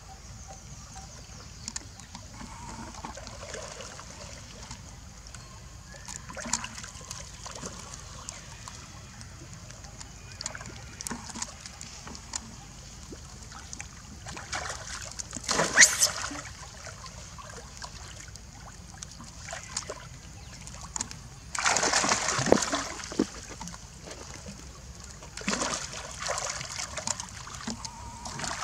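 Macaques swimming and splashing in a stone-walled pool, water sloshing and trickling around them, with louder bouts of splashing about halfway through and twice more near the end.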